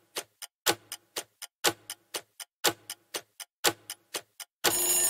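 Quiz countdown timer sound effect: a clock ticking about four times a second, the tick on each full second louder. Near the end a loud alarm-like ring about a second long marks time running out, then cuts off suddenly.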